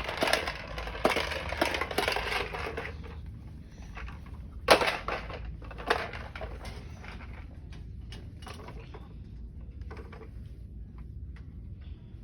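A vacuum cleaner being pushed and handled, rattling and clattering for the first three seconds, then giving scattered clicks and knocks, the loudest a sharp knock about five seconds in.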